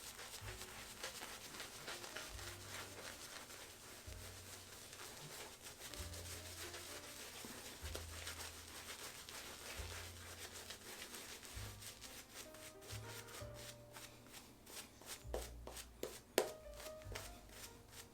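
Synthetic shaving brush scrubbing and swirling wet shaving soap into a lather, a quick run of bristly rubbing strokes. Faint background music underneath.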